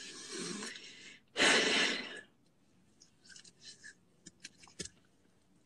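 A man crying: a rough breath, then a loud sharp sobbing breath about a second and a half in, followed by faint sniffles.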